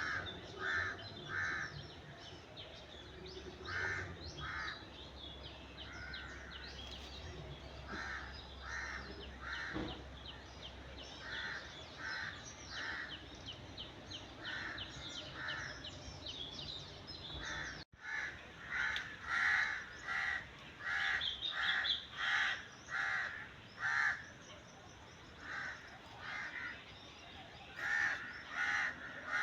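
Crows cawing over and over, the calls coming in runs of two or three, over fainter high chirping from smaller birds. The sound cuts out for an instant just past halfway, and the cawing is louder after that.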